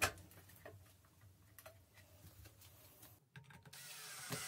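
Faint handling clicks of a plexiglass strip for about three seconds. Then, about three and a half seconds in, a drill starts driving a self-tapping screw into the plexiglass, its motor whine rising.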